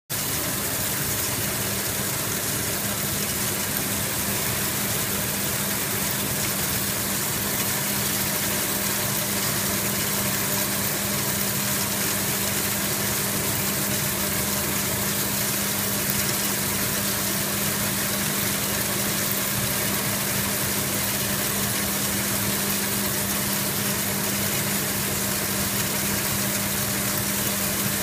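Brush-type sea shell washing machine running: its motor gives a steady hum under an even rushing of water spray and rotating brush rollers scrubbing the shells.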